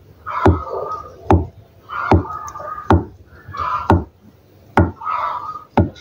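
Kitchen knife slicing through peeled hard-boiled eggs and knocking sharply on the cutting board, about one cut a second. Between the cuts, hens cluck in short repeated calls.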